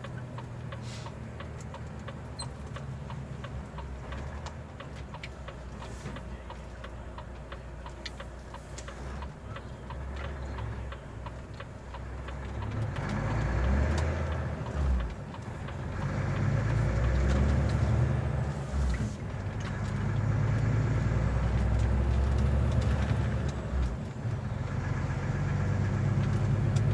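Semi-truck's diesel engine running on the move, a steady low drone that grows clearly louder about halfway through, with a few brief dips.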